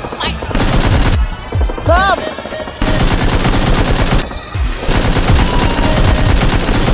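Rapid automatic gunfire sound effects, dubbed video-game style, firing in long continuous bursts from about three seconds in with a short break in the middle.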